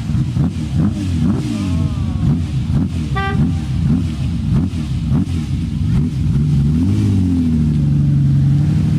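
Equus Throwback S engine being revved repeatedly in quick blips, its pitch rising and falling about twice a second. About seven seconds in it climbs and holds at a steady higher rev. A short car horn toot sounds about three seconds in.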